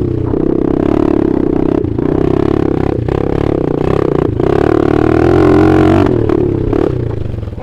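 Dirt bike engine running hard, its note rising and falling with the throttle and briefly dropping away three times as the rider shifts or rolls off, then falling near the end.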